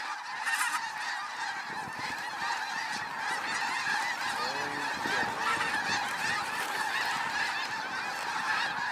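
A huge flock of snow geese calling overhead: a steady din of many overlapping honks.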